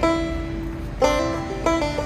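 Background music on a plucked string instrument, with a melody of quick picked notes.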